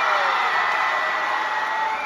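Audience cheering and whooping, with a few long, high shouts held over the noise of the crowd.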